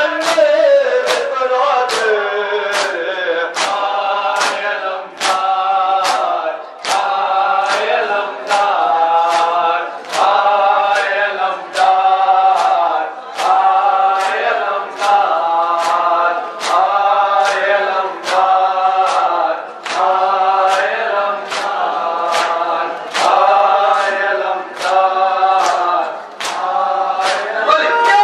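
A group of men chanting a nauha, an Urdu mourning lament, together, over matam: hands striking bare chests in a steady beat a little more than once a second.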